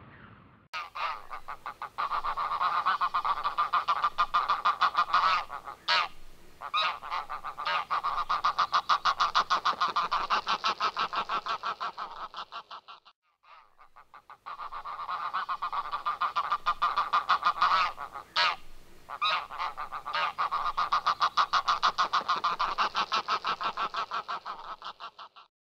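A large flock of geese calling: a dense, continuous chorus of overlapping honks that starts suddenly, breaks off briefly about halfway through, and then resumes.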